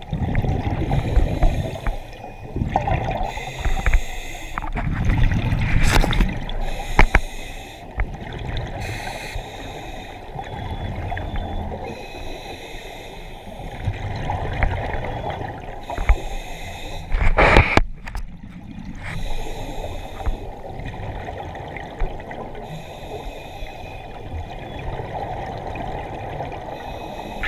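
Scuba regulator breathing underwater, heard muffled through a camera housing: exhaled air bubbling out in irregular bursts every few seconds, with one loud burst about two-thirds of the way through.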